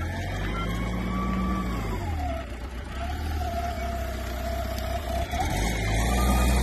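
Forklift truck engine running as it manoeuvres, its note rising and falling, getting louder near the end as it comes close.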